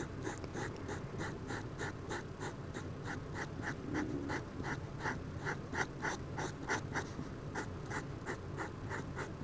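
Yellow Sharpie marker scratching on drawing-pad paper as it colours in, in quick back-and-forth strokes at about four a second.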